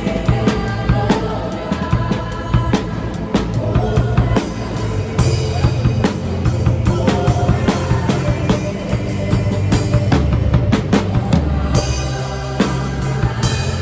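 Drum kit played steadily, with kick, snare and cymbal hits captured by a room microphone, over the song's pitched backing music.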